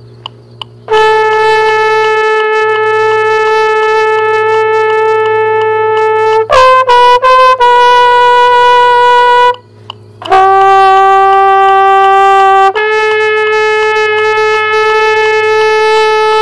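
Marching mellophone played in long held notes, four of them at different pitches with short breaks between, and a quick run of short notes about six and a half seconds in.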